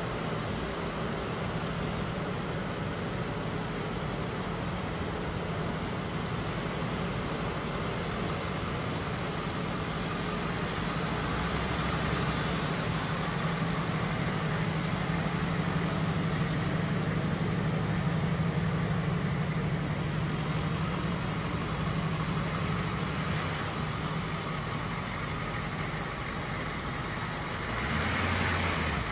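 Engines of a slow-moving line of ambulances and emergency vehicles, a steady low hum, with a brief sharp high click about halfway through; the engine sound grows louder near the end as an ambulance comes close.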